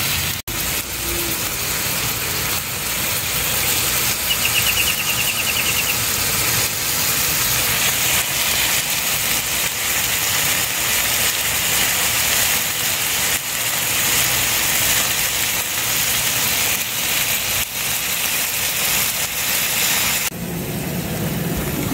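New York strip steaks sizzling on a hot propane flat-top griddle: a steady hiss of searing over a burner turned up high.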